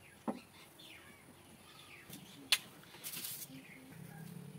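Faint bird chirps, several short calls falling in pitch. Two sharp clicks or taps stand out, the louder one about two and a half seconds in, and a short hiss follows at about three seconds.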